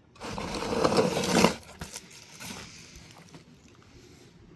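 Rough scraping and rustling for about a second and a half as firework packaging is handled, then faint small handling sounds.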